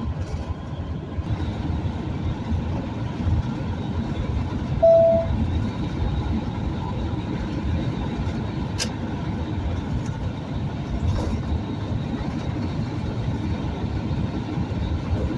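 Steady road and engine rumble heard from inside a vehicle's cabin while it drives along the highway. A short single-pitched beep sounds about five seconds in.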